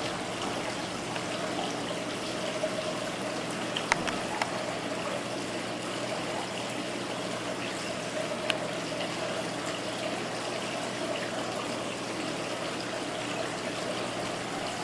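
Steady trickle of running water over a faint low hum, with a few faint clicks about four seconds in and again later.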